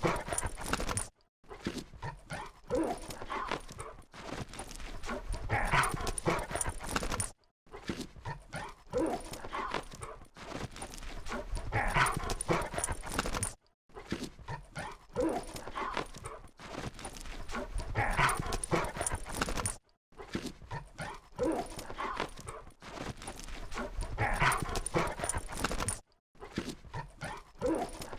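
Labrador retrievers playing together, with short, irregular dog vocal sounds and scuffling. The sound comes in stretches about six seconds long, broken by brief gaps.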